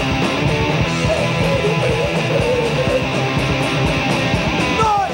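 Punk rock band playing: distorted electric guitar over bass and drums.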